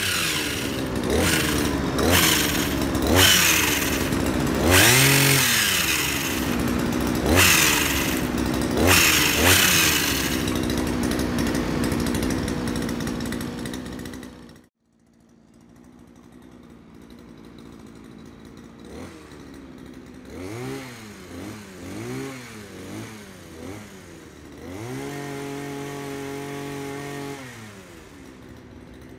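Two-stroke 52cc engine of a Sumo multi-purpose pole pruner running loud with its chain-saw head turning freely, revved up and down several times. About halfway it cuts off abruptly. After that it runs quieter, driving the hedge-trimmer head, blipped several times and then held at higher revs for a few seconds.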